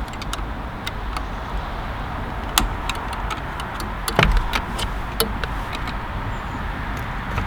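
A few small sharp plastic clicks and taps, the loudest about four seconds in, as a flat-head screwdriver prises the airbag connector plugs off the steering-column clock spring. They sit over a steady background noise.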